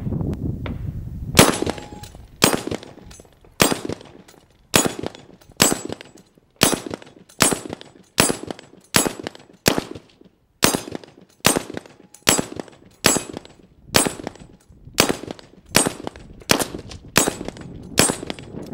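About twenty rifle shots from a .223 AR-style rifle, fired one after another at a steady pace of roughly one a second, starting about a second and a half in.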